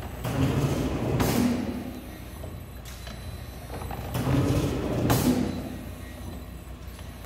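Sewoong SW-720SA Thomson die-cutting press running automatic cycles. Twice, about four seconds apart, a stretch of louder machine hum ends in a sharp clunk as the press strikes, and a quieter steady hum runs between the cycles.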